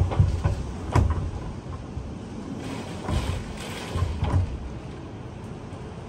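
Typhoon winds gusting hard with heavy rain, the gusts hitting the microphone as low rumbling surges, strongest about a second in and again around three to four seconds, easing off near the end.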